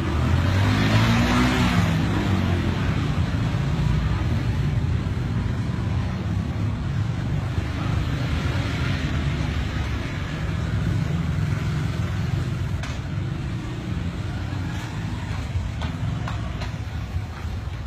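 Road traffic: a steady rumble of cars, with a vehicle passing close by about a second in and another swell of passing traffic around eight to ten seconds in.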